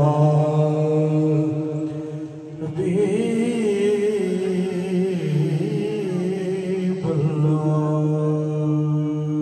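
A male voice sings long, held, wavering notes of a Punjabi Sufi kalam without clear words, over a steady low drone. The held pitch changes about three seconds in and again about seven seconds in.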